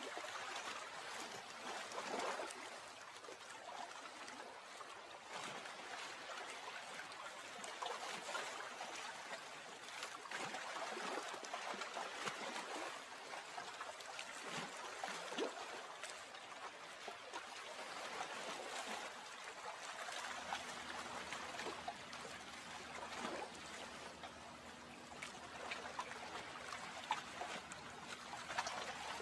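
Lake water lapping and trickling steadily, with many small splashes. A faint low hum joins about two-thirds of the way through.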